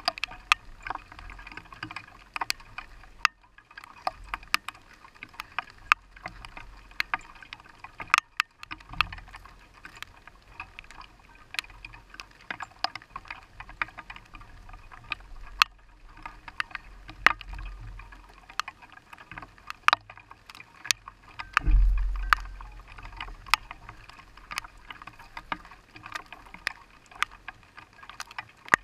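Rain tapping on a car's windshield and roof, heard from inside the car: irregular sharp taps, several a second, over a low hiss. A brief low rumble comes about 22 seconds in.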